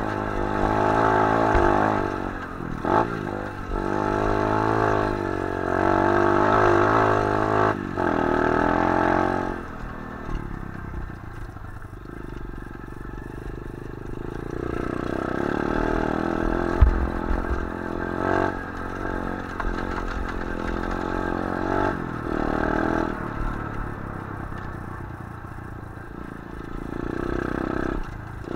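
125cc pit bike engine being ridden, revving up and down repeatedly over the first ten seconds, then running lower and quieter with gentler swells. The bike rattles over rough ground, and there is a single sharp thump about two-thirds of the way through.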